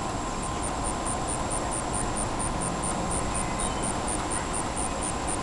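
Steady outdoor background rumble like distant traffic, with a faint high chirp repeating about four times a second.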